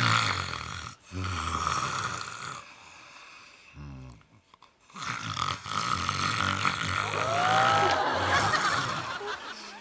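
A sleeping person snoring: several rasping snores in a row, a short one near the middle after a brief pause and a long one in the second half. The sound comes from the soft palate and uvula vibrating during sleep.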